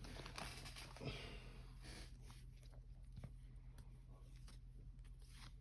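Near silence, with a few faint soft clicks and rustles from trading cards being handled just after a pack is torn open.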